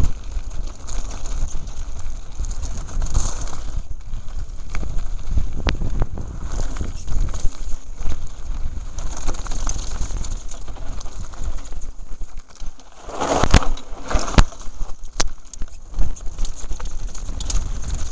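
Wind rushing over the microphone and the clatter of a mountain bike descending fast over a rocky gravel trail, with sharp knocks from bumps. A louder burst of rattling comes about thirteen seconds in.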